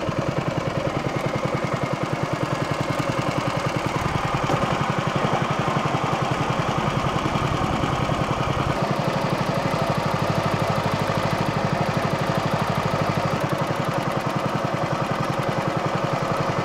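Small single-cylinder gasoline mud motor engine running steadily, pushing the boat along, with a slight change in its low tone about halfway through.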